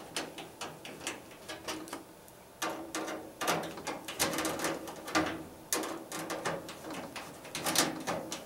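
Screws being undone and handled at the back of a steel ATX mid-tower computer case: irregular small metallic clicks and scrapes.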